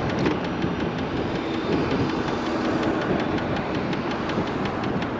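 Electric scooter riding along with a steady knocking tick from the front wheel, several ticks a second, over road and wind noise. The rider takes the knock most likely for the front fender and thinks it needs tightening.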